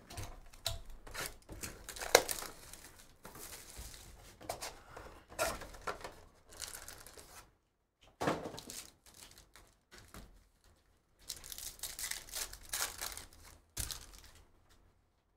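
Sealed Panini Phoenix football card boxes and foil packs being torn open by hand: irregular bursts of tearing and crinkling of cardboard and wrappers, with a sharp crack about two seconds in.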